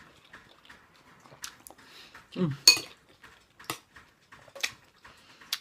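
Dishes and cutlery clinking, about five sharp clinks spread over a few seconds, the loudest about two and a half seconds in. A short voice sound comes just before the loudest clink.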